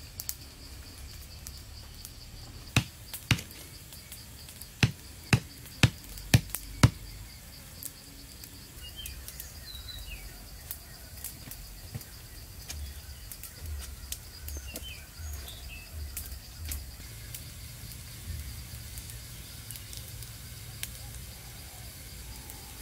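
Sharp knocks of wood being struck: two, then a run of five about half a second apart, a few seconds in. Faint bird chirps follow in the middle.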